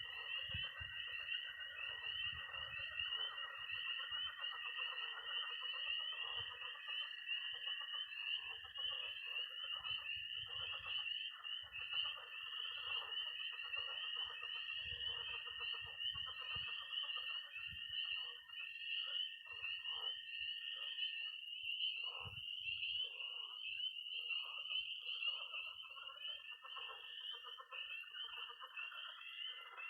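Night chorus of spring peepers, a dense mass of high peeping, with a steady high-pitched toad trill that stops about two-thirds of the way through and starts again near the end. Frogs in a pond keep up a low rasping croaking underneath.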